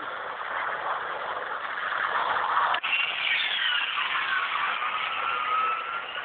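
A motor engine running with a steady noisy hiss. About halfway through, its whine drops sharply in pitch and then slowly climbs again.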